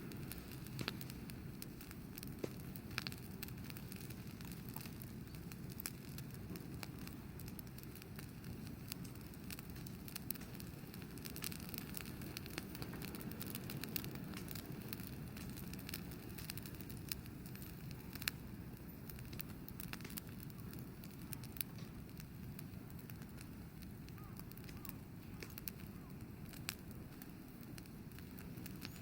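Wood bonfire crackling, with scattered sharp pops over a steady low rush.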